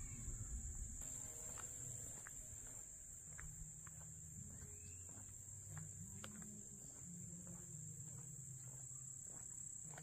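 Steady high-pitched chorus of insects trilling without a break.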